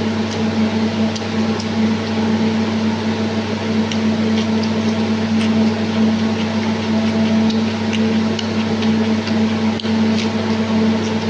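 A steady electrical hum runs throughout, and faint short clicks and smacks of someone chewing food are scattered over it.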